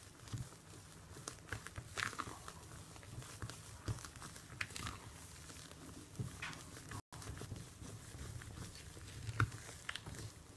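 Spatula folding whipped egg whites into cake batter in a glass bowl: soft, irregular wet squishing and squelching with small clicks. The sound briefly cuts out about seven seconds in.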